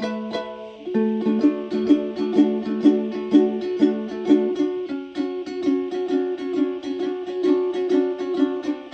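Plucked string instrument playing a steady repeating picked pattern of several notes a second, with a short dip and a change of chord about a second in.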